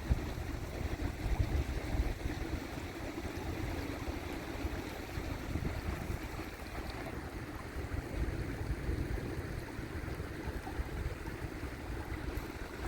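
Steady rush of flowing river water, with wind rumbling on the microphone.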